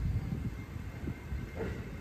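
Kōnan Line electric train pulling out slowly, a low rumble of its motors and wheels on the track.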